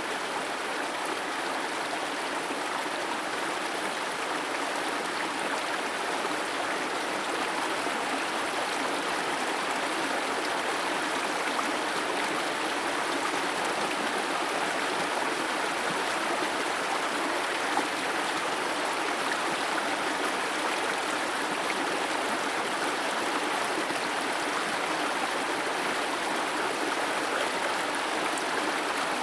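Steady rush and splash of a tall waterfall spilling in thin threads down a rock face.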